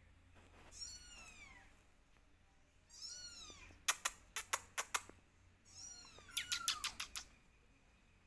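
Kittens meowing: three high, arching calls. Two quick runs of sharp clicks, the loudest sounds, come about four seconds in and again near the end.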